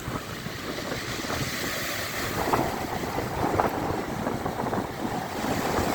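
Rough sea waves churning and breaking under strong wind, with wind buffeting the microphone; the noise surges louder a couple of times.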